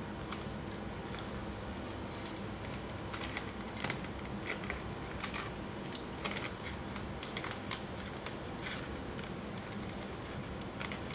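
Crinkling and irregular light clicks of clear transfer film and adhesive vinyl being handled and smoothed, over a steady low room hum.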